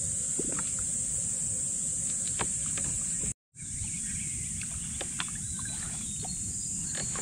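Water sloshing and light knocks from a small boat moving on a lake, with a steady high insect chirring behind. The sound drops out completely for a moment about three and a half seconds in.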